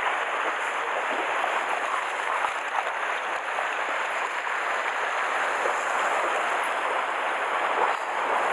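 Sea surf washing against the rocks: a steady, even hiss of moving water.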